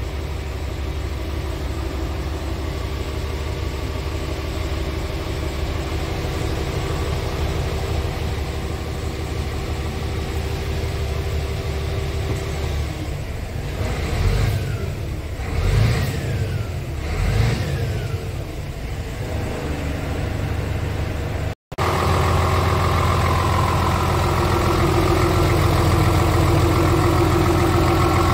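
Scania R tractor unit's diesel engine idling, heard from inside the cab, then revved three times in quick succession about halfway through. Near the end it idles louder and closer, heard at the engine compartment.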